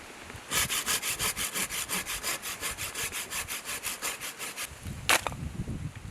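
Rapid, even rasping strokes, about seven a second, for roughly four seconds, like a blade or rough surface drawn back and forth across wood or food. A single sharp crack follows about five seconds in.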